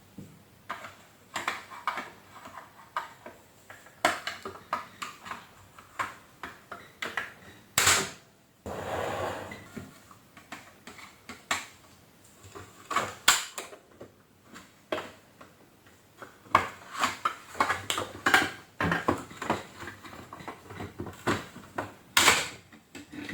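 Irregular clicks, knocks and rattles of plastic parts and tools as a Panasonic MC-CJ911 canister vacuum cleaner's casing is taken apart, with a short scraping noise about nine seconds in.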